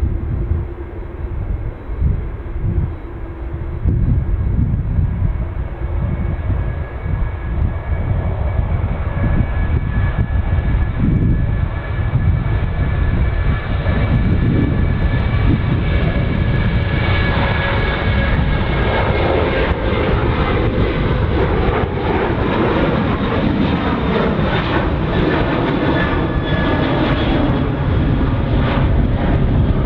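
Jet airliner engines running close by: a deep rumble with a high engine whine that grows stronger and brighter in the second half.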